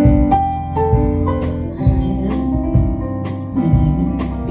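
Instrumental gospel accompaniment: a keyboard holding chords and playing short melodic notes over a steady beat, with no singing.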